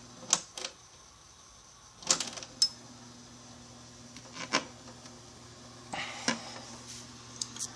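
Pull chain on the back of a Harley-Davidson neon clock being handled: a scatter of sharp clicks and light rattles from the bead chain and its pull-chain switch, over a low steady hum.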